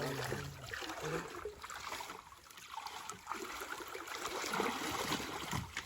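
Water splashing and trickling, with a few light knocks. A voice trails off right at the start.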